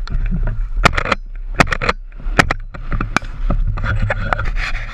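Camo clothing and gear scraping and rubbing against a body-mounted action camera's housing, with a run of sharp knocks and clicks, the loudest about a second in and twice more shortly after.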